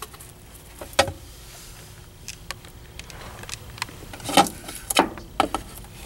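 Light knocks, taps and scrapes of the fuel pump access cover, with its rubber gasket, being handled against the car's sheet-metal floor pan. There is one sharp knock about a second in and a cluster of knocks near the end.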